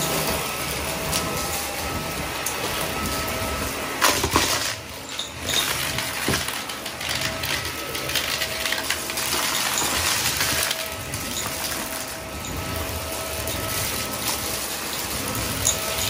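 Vacuum cleaner running, a steady motor whine over a rushing hiss. The sound jumps and dips briefly about four seconds in, and the hiss grows louder for a couple of seconds around the middle.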